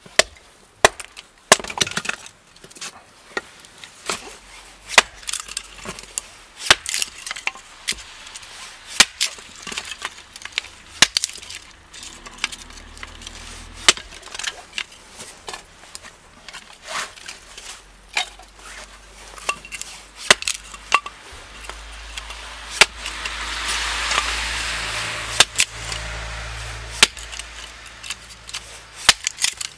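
Hatchet splitting wood into kindling on a stump chopping block: repeated sharp chops and cracks of the blade striking and splitting thin sticks, irregular, about one or two a second. A rushing noise swells and fades in the background about two-thirds of the way through.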